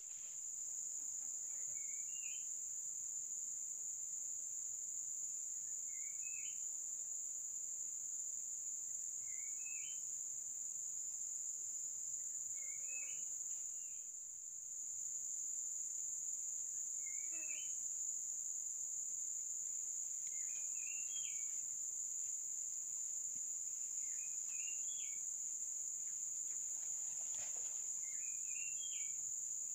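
Steady high-pitched insect drone, with a short rising chirp repeated eight times, about every three to four seconds.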